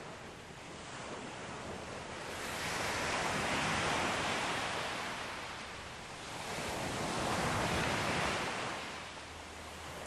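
Sea waves breaking and washing onto a shore: two swells of surf that rise and fall away, one peaking about four seconds in and another about eight seconds in.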